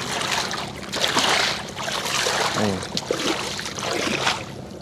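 A wet gill net being hauled in over the side of a small boat, with water splashing and streaming off it in uneven surges and a few light knocks.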